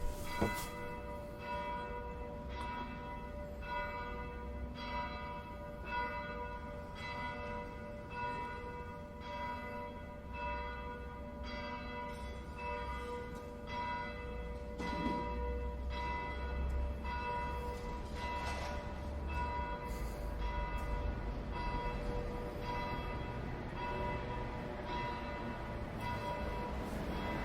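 A bell struck over and over, about once a second, each stroke ringing on under the next.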